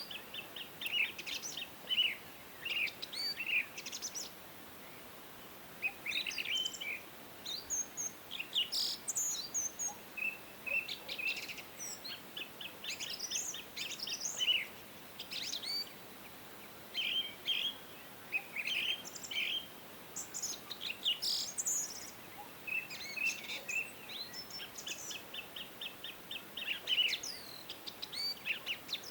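Several songbirds chirping and singing, with short whistled phrases and rapid trills repeating every second or two, over a faint steady hiss.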